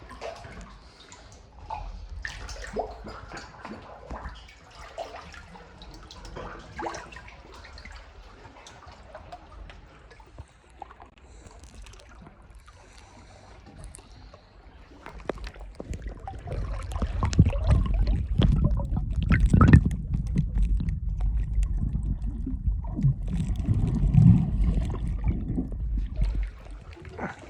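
Sea water lapping and sloshing, with small splashes. About halfway through it grows much louder and heavier, with a deep rumbling slosh that drops away just before the end.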